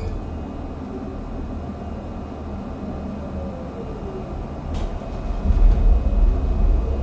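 Inside a city transit bus: steady low engine and road rumble. A faint falling whine comes in around the middle and a single click just before five seconds in, after which the low rumble grows louder.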